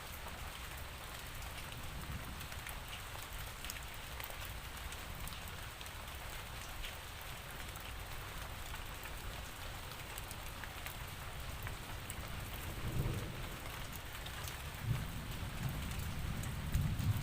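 Steady rainfall, an even hiss with scattered drop patter. In the second half, low rumbles of distant thunder come and go several times.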